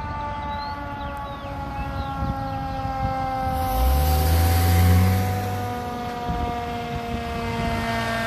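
Fire engine siren sounding one long wail that slowly falls in pitch. An ambulance drives close past about four seconds in, its engine loudest for a second or so.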